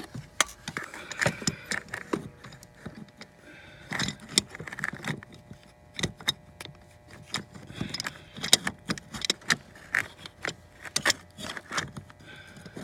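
Irregular metallic clicks, clinks and short scrapes of hand tools, a quick-disconnect release tool and channel-lock pliers, being worked around a plastic heater-core coolant line fitting.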